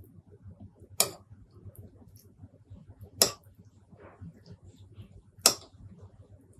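Close-miked eating sounds: three sharp, loud mouth clicks about two seconds apart, with faint chewing between them.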